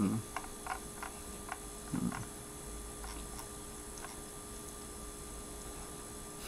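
Quiet room tone with a steady electrical hum, a few faint clicks in the first second and a half, and one short low voice sound at about two seconds.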